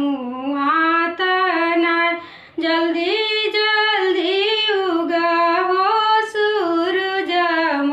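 A woman singing a Bhojpuri Chhath folk song unaccompanied, drawing out long held notes that glide between pitches, with a short pause for breath about two seconds in.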